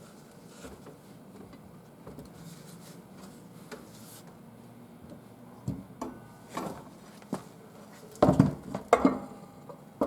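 Metal clanks and knocks as a motorcycle rear wheel is worked into position in the swingarm. Mostly quiet for the first five seconds, then a run of separate knocks, the loudest a quick cluster near the end.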